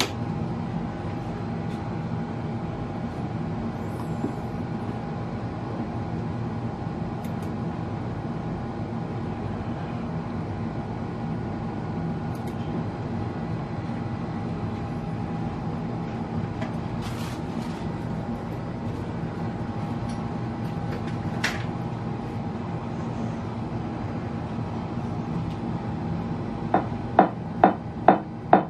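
Steady hum and rumble with a faint steady tone, then near the end a loud beat of about two pulses a second starts, played through a PA horn loudspeaker driven by a UKC PA-325BT amplifier.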